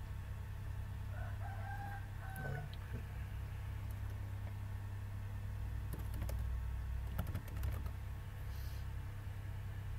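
Computer keyboard typing: a quick run of clicks about six to eight seconds in, over a steady low hum. About a second in, one long bird call in the background rises, holds and drops away.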